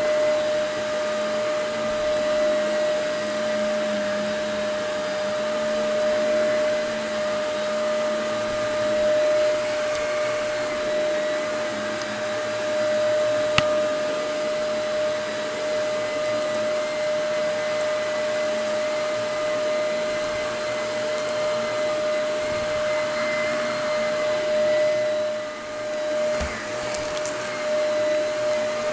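Vacuum cleaner running over carpet, its motor giving a steady whine at one unchanging pitch over a constant rushing hiss. A single sharp click about halfway through, and a brief drop in level near the end.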